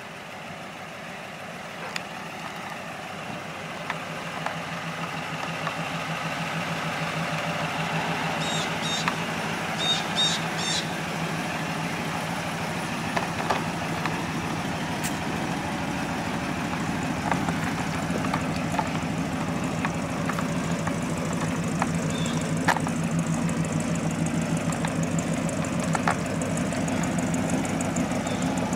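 Original 239-cubic-inch Ford flathead V8 with twin Stromberg carburettors idling steadily, growing louder over the first several seconds.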